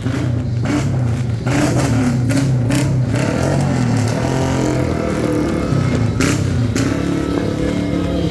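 Motor vehicle engines running and revving, their pitch wavering, with sharp firecracker bangs: several in the first three seconds and two more about six seconds in.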